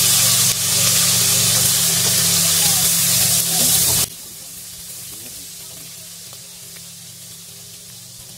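Food sizzling in hot oil in a wok, a loud, even hiss that drops suddenly to a much fainter sizzle about four seconds in. A steady low hum runs underneath throughout.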